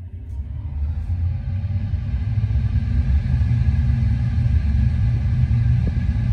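Tesla Model 3 cabin blower fan spinning up to its maximum setting, air rushing out of the dashboard vents with a deep rumble. It grows louder over the first couple of seconds, then holds steady. The flow is held back by an exterior intake filter fitted on top of the HEPA cabin filters, which the owner finds too restrictive.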